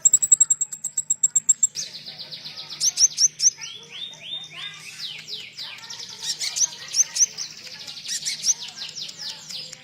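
A konin songbird singing a song filled with phrases learned from the cililin. It opens with a rapid high trill for about the first two seconds, then goes into fast runs of short downward-sliding whistles.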